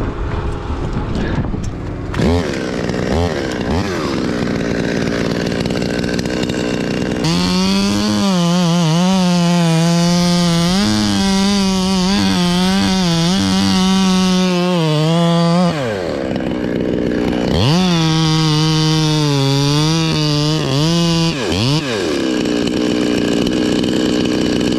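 Gasoline chainsaw blipped a few times, then held at full throttle through a cut for about eight seconds, its pitch sagging and recovering as the chain loads in the wood. It drops back briefly, then runs another cut of a few seconds before easing off near the end.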